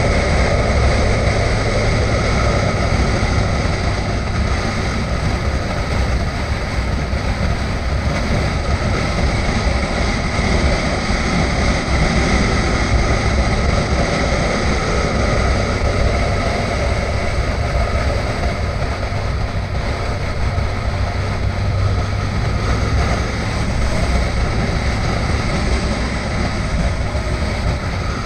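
Adventure motorcycle cruising at a steady pace, engine running evenly under a continuous rush of wind over the onboard camera.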